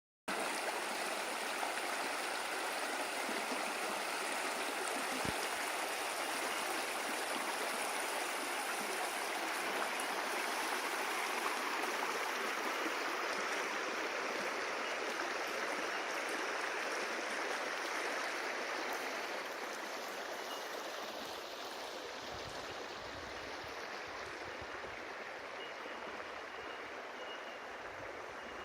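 River water running over rocks: a steady rushing and babbling that eases a little after about twenty seconds.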